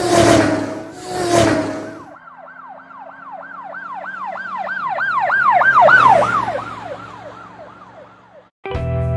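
Two loud horn-like blasts, then an emergency-vehicle siren yelping about three times a second. It swells to a peak, then drops in pitch and fades as it passes by. Music cuts in abruptly near the end.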